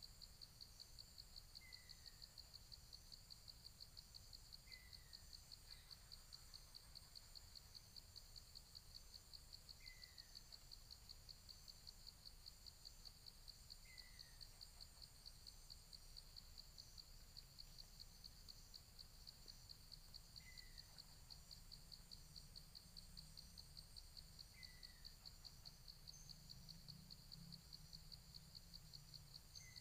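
Faint, steady chorus of insects trilling with a fast, even pulse, high-pitched. Every few seconds a small bird gives one short, falling chirp.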